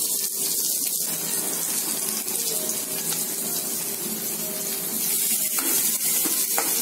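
Sliced shallots sizzling in hot oil in an aluminium kadai, a steady hiss. Near the end a slotted spoon starts stirring them, with a few light scrapes against the pan.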